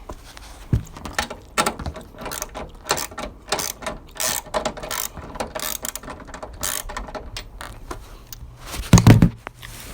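Hand ratchet wrench clicking in short irregular runs while bolts on a car's strut assembly are tightened, with a louder clunk about nine seconds in.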